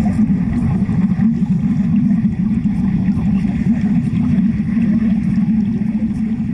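Wet stick welding heard underwater: a steady, dense low rumble of bubbling with crackle from the arc.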